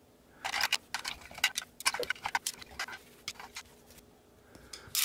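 Oil-paint brushes clicking against each other and against the metal brush-washer tin as they are taken out and gathered, in a quick irregular run of clicks.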